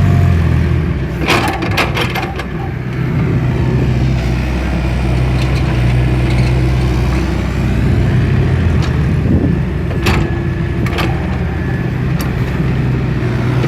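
A large vehicle engine running steadily at a low pitch. Several sharp knocks come about a second in, and a couple more come around ten seconds in.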